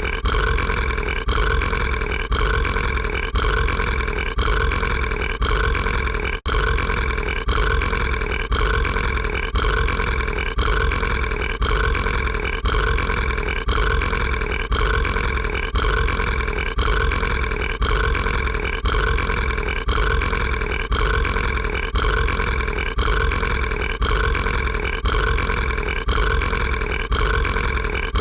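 An animated monster character's long, drawn-out burp, looped so that one short stretch repeats over and over without a break, with a brief dropout about six seconds in.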